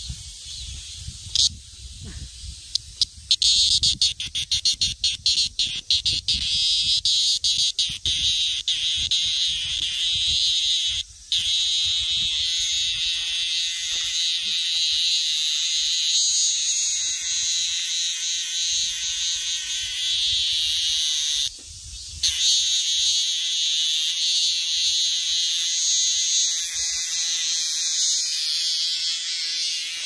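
Minmin cicada screaming while held in the hand. About three seconds in it starts with a rapid stutter of loud pulses, then settles into a continuous high-pitched buzz that breaks off twice for a moment.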